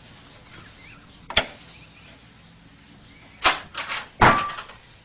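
Latch and door of a cat puzzle box knocking and clattering as the cat works its way out: one sharp knock about a second in, then a quick run of knocks near the end, the last one the loudest.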